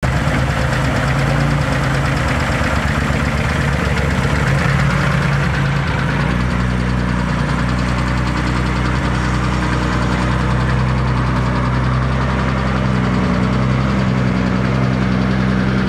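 1972 Porsche 911T 2.4's air-cooled flat-six engine idling steadily.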